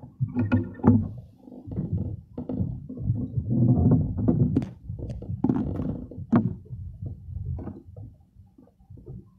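Wind buffeting a phone's microphone: an uneven low rumble that swells and drops, with a few short knocks mixed in.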